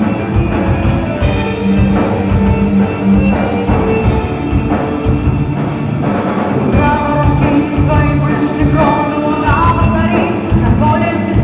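Folk-rock band playing live with drums, guitars and violin, loud and with a steady beat, recorded from within the crowd.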